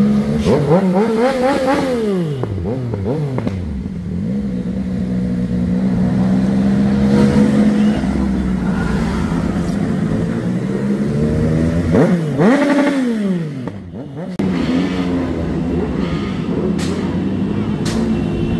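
Motorcycle engines running steadily as a large group rides together, with an engine revved up and back down twice, shortly after the start and again about two-thirds of the way through.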